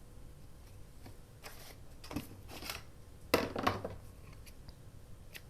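Scissors snipping the string on a paper journal tag: a few short, crisp snips, the loudest about three and a half seconds in.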